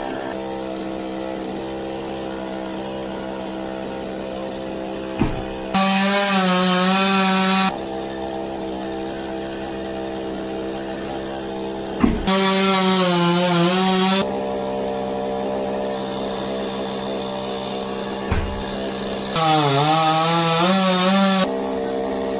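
Chainsaw idling between three cuts into a coconut palm trunk. Each cut lasts about two seconds: the engine revs up and its pitch sags and wavers as the chain bites into the wood.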